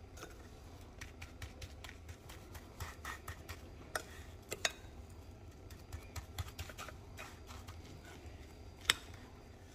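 Metal fork tapping and scraping against a glass pie plate while pressing panko breadcrumbs onto a chicken cutlet: irregular light clicks, with a sharper clink about nine seconds in.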